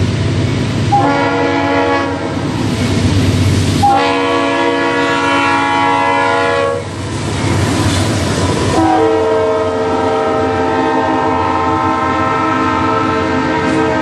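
Norfolk Southern diesel locomotive's air horn blowing three long blasts for a grade crossing. The third blast is held as the locomotive passes and sounds at a lower pitch, over the rumble and clatter of the train's wheels.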